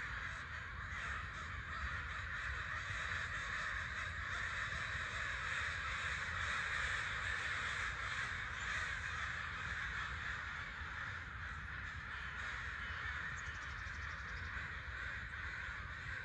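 A flock of American crows cawing over one another in a continuous chorus, harassing something in the trees.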